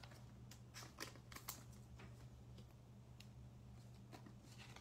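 Faint clicks and taps of trading cards being handled and set down on a table, a scattered few, over a low steady hum.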